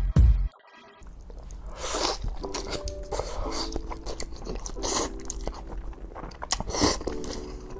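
Close-miked chewing and biting of spicy instant noodles, many short wet clicks and smacks. It plays over quiet background music with a short repeating melody, after a couple of heavy low beats at the very start.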